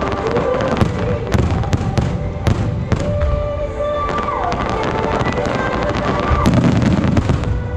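Aerial fireworks display: shells bursting in a quick run of sharp bangs and crackles, heaviest about six to seven seconds in.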